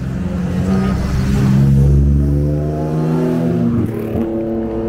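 Rally car engine accelerating up the hill climb, its note rising steadily, then breaking about four seconds in before running on at a steadier pitch.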